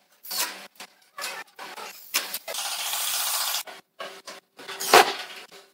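Cordless impact driver driving screws through a steel hinge into a wooden frame: short stop-start bursts on the trigger, with one longer run of about a second and a half in the middle.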